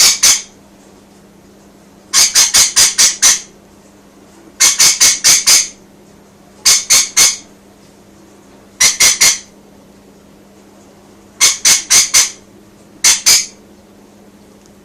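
Rainbow lorikeet screeching in quick clusters of two to five shrill notes, a burst about every two seconds, calling out to birds outside.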